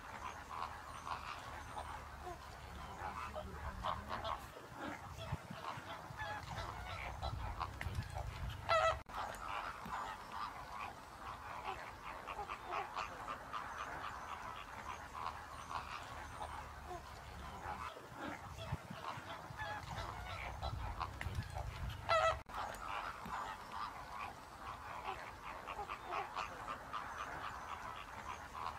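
A flock of greater flamingos honking and gabbling, a dense goose-like chatter of many short calls, with two louder single honks about 9 seconds in and again near 22 seconds.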